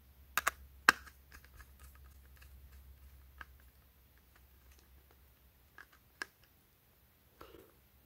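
Small clicks of a Phillips screwdriver working a terminal screw on a Ring Video Doorbell 2's back plate while a wire is fastened under it: three sharp clicks within the first second, then scattered faint ticks.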